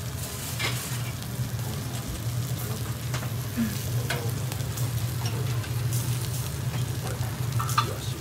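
Skewered sardines sizzling on a wire-mesh grill over charcoal, with scattered short crackles and pops, over a steady low hum.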